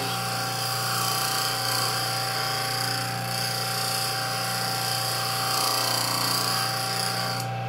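Bench grinder wheel grinding a facet onto a rod of O1 tool steel under light hand pressure: a steady hiss of steel on the wheel over the grinder motor's hum. The grinding stops near the end while the motor keeps running.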